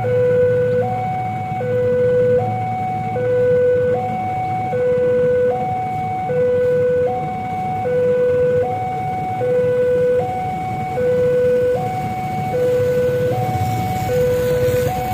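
Railway level-crossing warning alarm sounding a steady two-tone electronic signal, a lower and a higher tone alternating evenly, each held a little under a second, over a low rumble.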